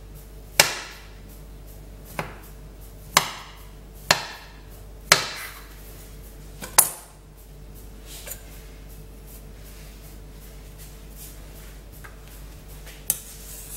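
Kitchen knife cutting through a log of soft cookie dough, the blade knocking on the granite countertop at each cut: six sharp knocks about a second apart, then a last one near the end.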